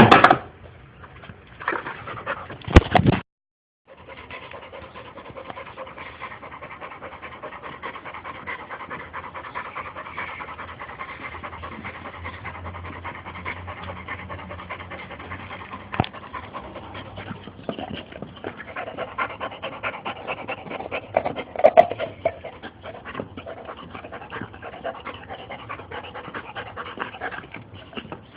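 A boxer dog panting steadily and rapidly. A few sharp knocks stand out, the loudest two to three seconds in.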